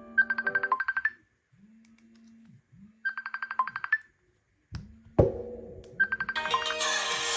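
Smartphone incoming-call ringtone: short bursts of a fast electronic trill, twice about three seconds apart, over low buzzing pulses. A sharp knock about five seconds in, then another trill leads into a fuller musical ringtone near the end.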